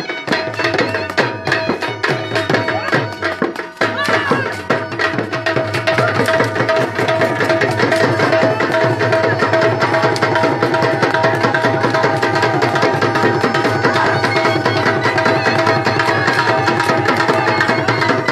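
Dhol drums beating a fast, driving dance rhythm, with a held melody line sounding over them. The drumming grows louder and busier about five seconds in.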